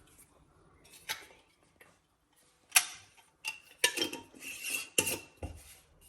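Kitchen clatter: a few separate knocks, then a run of clinks and knocks in the second half, as containers and utensils are handled and set down.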